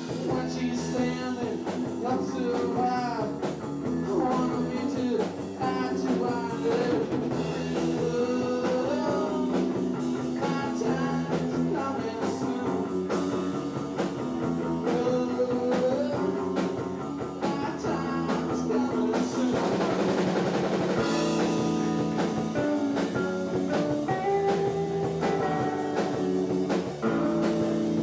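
A rock band playing live, with electric guitar to the fore.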